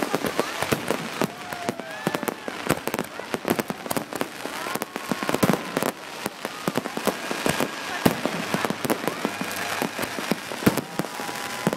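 Fireworks going off at close range: a dense, unbroken barrage of sharp bangs and crackles, many per second, with no pause.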